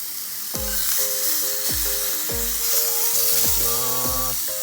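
Electronic background music, a synth melody over a deep kick drum, comes in about half a second in, over the steady sizzle of pork tongue frying.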